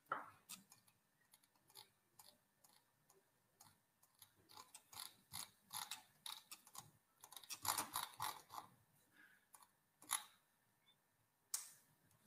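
Faint clicking of a computer mouse and its scroll wheel, in irregular runs of ticks, densest in the middle, with two single clicks near the end.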